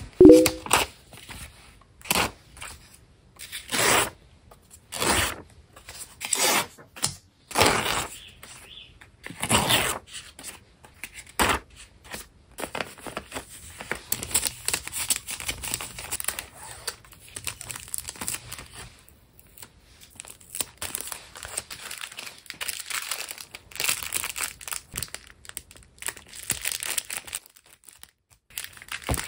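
Hand-packing of stationery orders. A run of separate, loud tearing strokes of paper or tape fills roughly the first twelve seconds, then gives way to continuous, quieter crinkling and rustling of paper and plastic wrapping.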